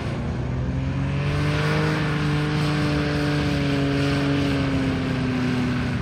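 Powered paraglider's engine and propeller droning steadily overhead, its pitch easing slightly lower in the second half as it comes in to land.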